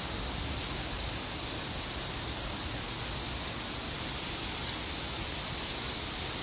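Steady hiss of falling rain, with a brief high sound about five and a half seconds in.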